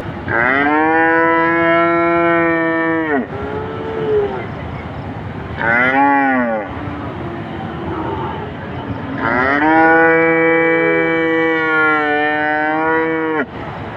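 A cow mooing: two long, steady calls of three to four seconds each, with a short call about six seconds in between them.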